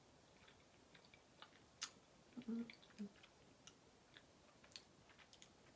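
Faint mouth sounds of someone eating cheesecake: scattered soft wet clicks and smacks of chewing, with one sharper click just under two seconds in.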